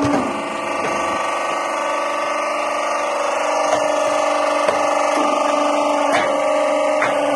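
Notebook edge-squaring machine running: a steady motor hum with a few sharp knocks at irregular intervals.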